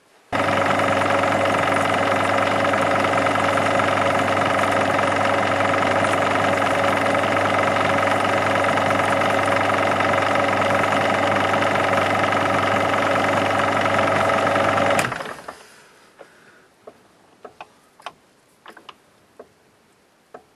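Metal lathe running steadily with a hum and whine from its motor and gears while machining an edge of a copper plate held in the chuck. It starts abruptly under a second in, is switched off about fifteen seconds in and winds down over about a second, followed by a few faint clicks and taps.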